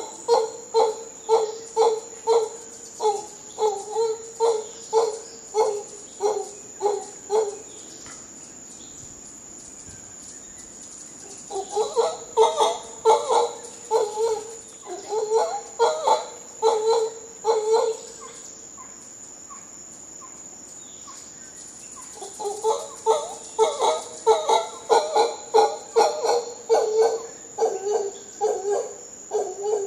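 Mantled howler monkey giving rhythmic pulsed grunting calls, about two a second, in three bouts separated by pauses of a few seconds. A steady high-pitched insect whine runs underneath.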